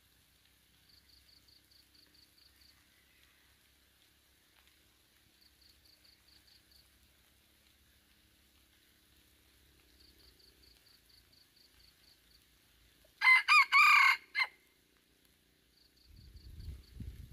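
Red junglefowl rooster crowing once, a loud crow of just over a second ending in a short clipped final note. Faint high insect pulses come and go in the background.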